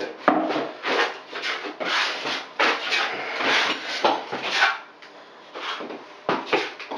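Flat putty knife scraping and spreading liquid waterproofing membrane over fiberglass mesh tape on a backer-board wall. The strokes are short and repeated, about two a second, with a pause about five seconds in and one more stroke near the end.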